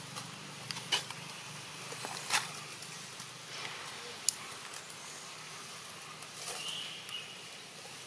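Outdoor ambience with a steady low hum and a few scattered sharp clicks and taps, the sharpest about halfway through. A brief faint high chirp comes near the end.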